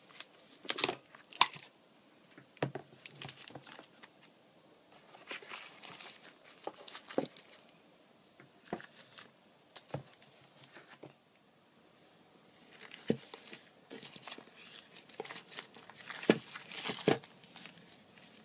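Packaging crinkling and rustling with scattered sharp clicks and knocks as an Apple wireless keyboard is handled in and lifted from its plastic tray and the boxed Magic Mouse is picked up. The loudest are two sharp clicks about a second in and a cluster of knocks near the end.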